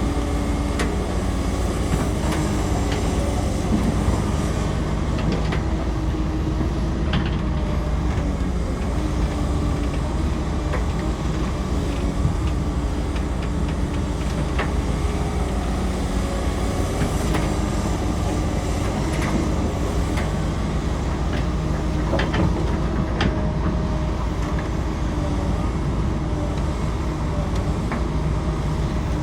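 Excavator's diesel engine running steadily, with scattered sharp knocks and clanks over it.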